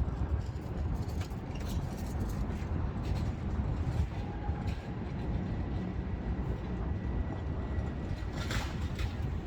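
City street ambience: a steady low rumble of road traffic, with a few faint clicks.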